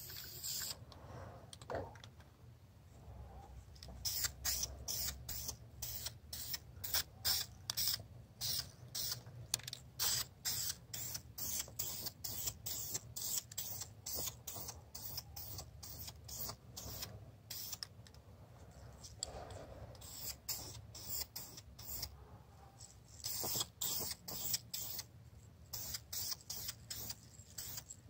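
Aerosol can of Duplicolor rust-barrier primer spraying in many short hissing bursts, about two a second, with a couple of brief pauses.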